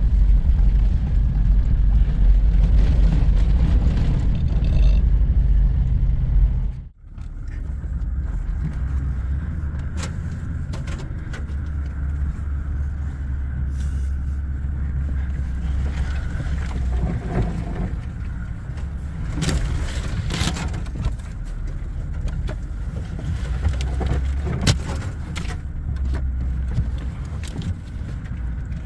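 Four-wheel drive pushing through deep snow: the engine under load and the tyres make a steady low rumble, with scrapes and knocks as snow is thrown against the vehicle. A brief break about 7 seconds in.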